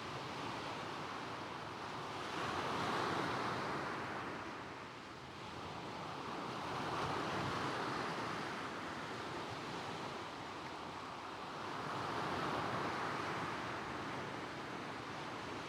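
Gentle waves washing onto a shingle beach of stones, surging and receding three times about four to five seconds apart.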